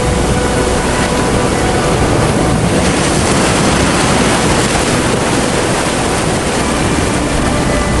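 Steady, loud rushing noise of torrential muddy floodwater and wind, with no breaks or distinct impacts.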